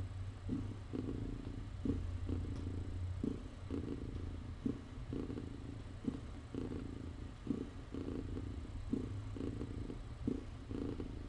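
Mother cat purring as she nurses her kittens. The purr is low and steady and swells and breaks with each breath in and out, about once every second and a half.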